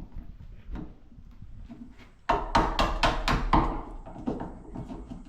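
Hammer striking wood in a quick run of sharp blows, starting about two seconds in after a few faint clicks, then slowing to scattered knocks.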